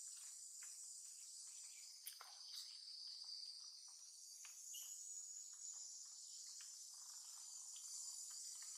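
Faint, steady, high-pitched insect chorus, with scattered soft clicks.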